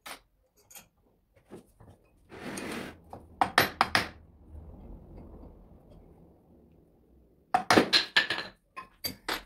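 Sharp metal knocks and clinks of a hammer tapping on the hub and shaft of a Multilith 1250 vane compressor as it is assembled. They come in quick groups: a few about three and a half seconds in, a cluster near eight seconds and two more near the end, with a short scraping noise before the first group.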